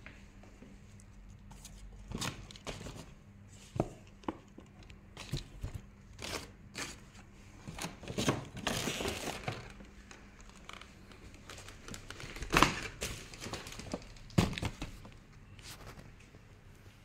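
Paper gift bags rustling and crinkling as they are handled and reached into, with scattered sharp knocks and clicks; the longest stretch of rustling comes about halfway through.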